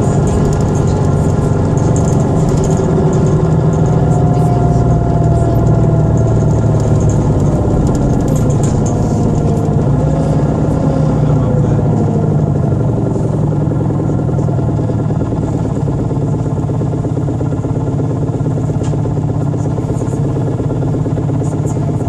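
Steady low rumble of a moving vehicle heard from inside its cabin, with a faint whine that rises and falls now and then.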